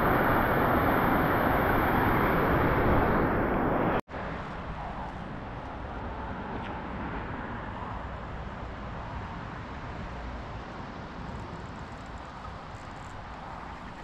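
A loud, steady rush of falling water that cuts off abruptly about four seconds in. A quieter, steady rushing follows.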